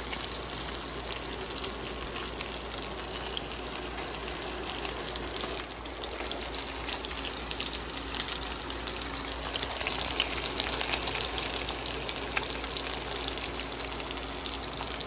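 Food sizzling in a pan on an induction cooktop: a steady hiss with many small crackling pops.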